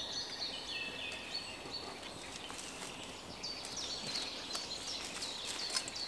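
Several songbirds singing, with short high phrases overlapping throughout. Faint rustling footsteps in dry leaf litter near the end.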